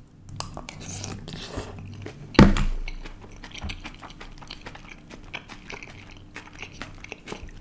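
Close-miked chewing of a mouthful of flat stir-fried noodles and vegetables: soft, wet mouth clicks and smacks throughout, with one louder thump about two and a half seconds in.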